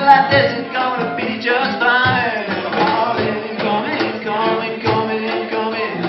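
Live band playing: a high melody that slides between notes over cajon and drum beats.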